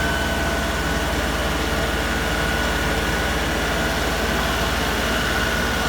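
LS XR3135 compact tractor's diesel engine running steadily, with a steady high-pitched whine over it.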